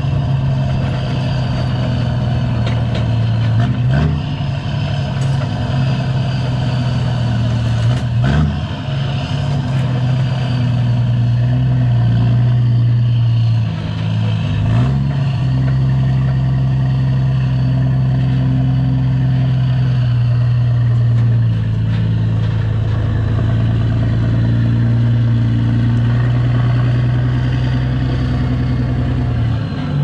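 Straight-piped Kenworth semi's diesel engine running steadily as it slowly pulls a loaded lowboy trailer, with a few knocks and clunks from the rig as it rolls over the bumpy dirt lane.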